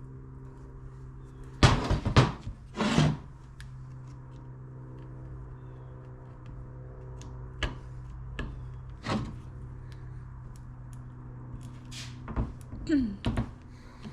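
Knocks and clunks of parts being handled, the loudest group about two to three seconds in and fainter clicks later, over a steady low hum.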